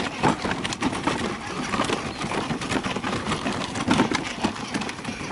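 Plastic wheels of a child's ride-on toy motorcycle rolling over a dirt path, with an uneven crunching and scattered clicks and knocks.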